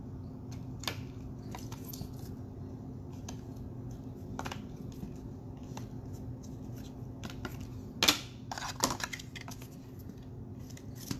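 Plastic card holder and trading card being handled: light rustling and scattered clicks, with a sharp plastic click about eight seconds in and another a second later, over a steady low hum.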